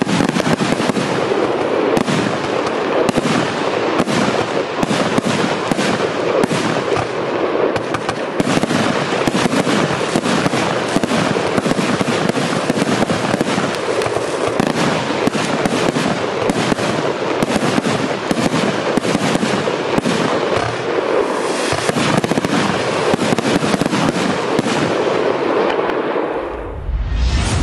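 Pyroworx Shell Shocked firework cake firing its 25 mm and 30 mm shots in a fast, continuous barrage: launch thumps, bursts and crackling stars run together. Near the end the firing dies away and a rising whoosh begins.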